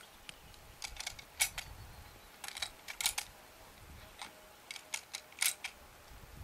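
Light mechanical clicks and rattles of equipment being handled, coming singly and in small clusters of two or three, over a faint low background rumble.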